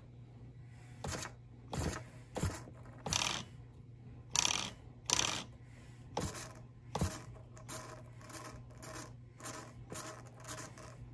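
Clear plastic zip-lock bag crinkling in short, irregular bursts as it is handled and opened, with quicker, smaller crinkles in the last few seconds.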